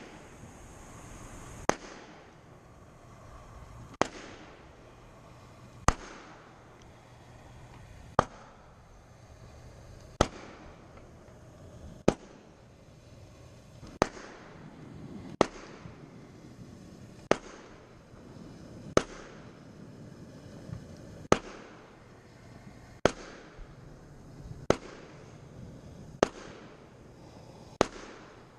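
Fireworks show: sharp bangs about every two seconds, each trailing off over a second or so.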